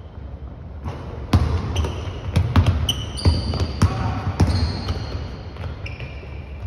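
Basketball bouncing several times on a hardwood gym floor, mixed with short high squeaks of sneakers on the court.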